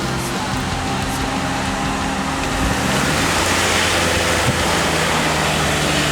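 Toyota RAV4's engine running hard as the car churns its way through deep mud. The engine and the mud noise swell about three seconds in.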